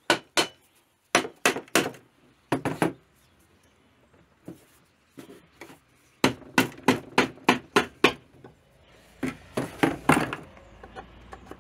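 Mallet knocking on the alloy clutch-side cover of a Tomos A3 moped engine to break it free from the crankcase: sharp blows in twos and threes, then a run of about eight quick blows in the middle and a few more near the end.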